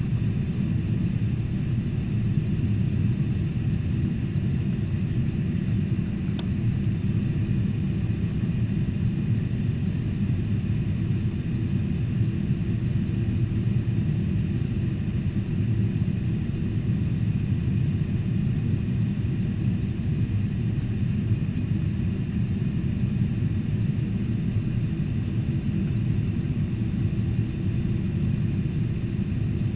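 Steady cabin noise inside a Boeing 747-400 in flight: an even, low rumble of engines and airflow with no change.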